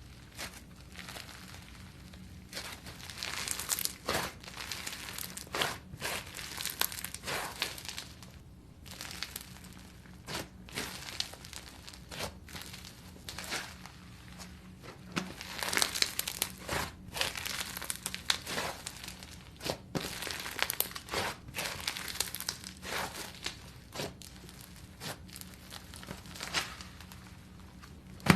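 Slime being squished and poked by hand, giving irregular clusters of sticky crackles and small pops.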